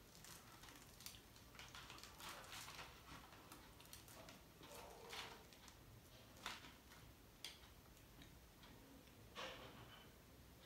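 Faint crackling and tearing of a flaky lachha paratha being pulled apart by hand: a scatter of small sharp crackles, a few of them louder in the second half.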